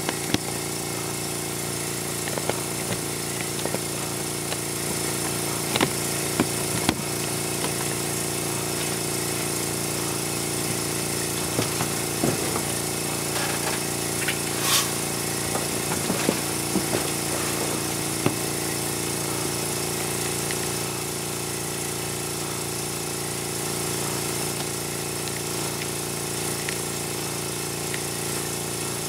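Small electric air compressor running with a steady mechanical hum and hiss, supplying air to a model steam engine. A few sharp clicks and knocks sound over it, the loudest about halfway through.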